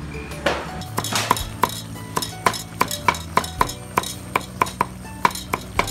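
Metal ladle stirring soup in a metal cooking pot, clinking against the pot's side about three times a second with a short ring on each knock.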